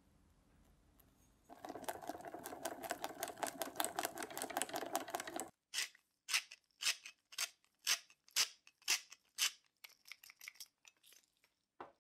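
Wire whisk beating béarnaise sauce in a stainless saucepan: rapid scraping strokes. About five seconds in the whisking stops, and a pepper mill grinds over the sauce in separate crunchy twists, about two a second.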